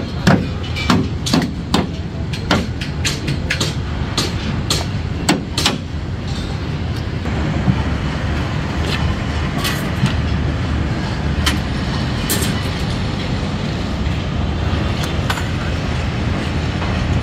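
Work on steel column formwork and scaffolding: sharp knocks and clanks, about two a second for the first six seconds, then only a few scattered ones, over a steady low rumble.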